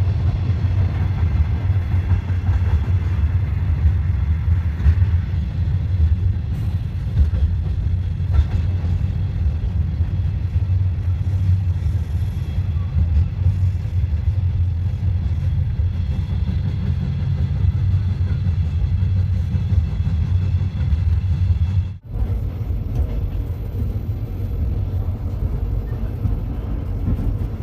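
Steady low rumble of a moving train, heard from inside. About twenty-two seconds in, the sound drops out for a moment, then the same rumble carries on.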